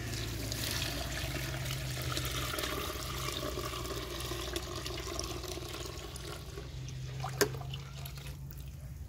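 Milk pouring in a thick stream from a steel bucket into a large aluminium cooking pot, a steady gushing splash that thins out near the end. A single sharp knock about seven seconds in.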